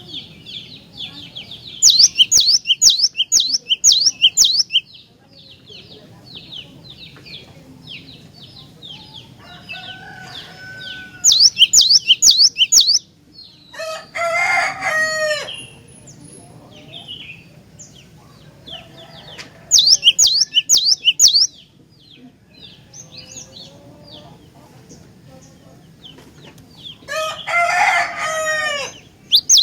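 Cinereous tit (glatik batu) singing: four loud bursts of rapid, repeated high chirps, each about two seconds long, with softer chirping between them. Twice, a lower, harsher call with several stacked notes sounds for about two seconds.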